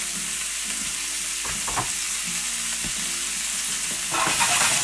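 Chopped carrot, celery and onion sizzling in hot rendered lamb fat in a stainless steel frying pan, with a few light knocks as the last pieces are scraped in from a bowl. Near the end the sizzle grows louder as the pan is moved to toss the vegetables.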